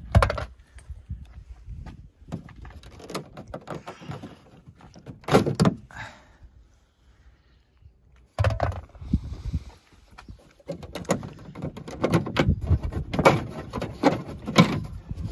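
Irregular knocks, clicks and rattles of hands gripping and pressing the hard plastic interior trim of an Audi A6's trunk lid, loudest in a burst near the start and in a dense run near the end.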